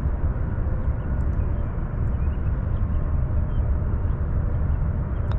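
Steady wind noise buffeting the microphone, a low uneven rumble, with a few faint bird chirps.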